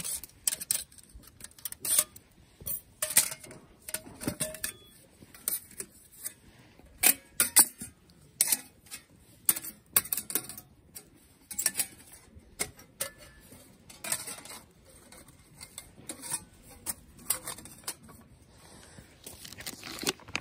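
Metal camp cookware clattering: a metal grill stand and a mess tin being handled and set down, a string of irregular clinks and knocks.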